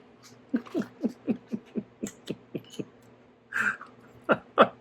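A man laughing in a quick run of short "ha" bursts, each dropping in pitch, about four a second, with a few more short laughs or vocal sounds near the end.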